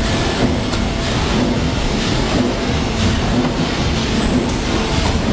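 Forging hydraulic press running, a loud steady mechanical rumble with a faint hum and a few light clicks.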